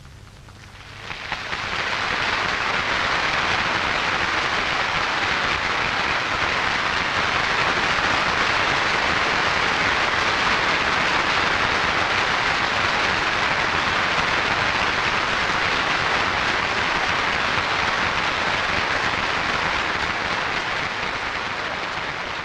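Large audience applauding: dense, steady clapping that builds about a second in and carries on without a break, easing off near the end. Heard on a 1942 film soundtrack.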